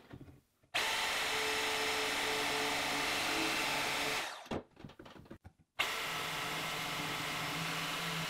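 DeWalt DWM120K deep-cut portable bandsaw switched on and running steadily for about three and a half seconds, then stopping. A few light knocks follow, then it is switched on again and runs on steadily.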